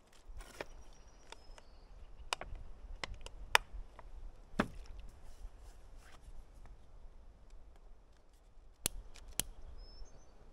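Scattered sharp clicks and knocks from a plastic lighter-fluid bottle and charcoal briquettes being handled at a small kettle grill. Near the end, two quick clicks about half a second apart come as a long-nosed lighter is clicked at the fluid-soaked briquettes to light them.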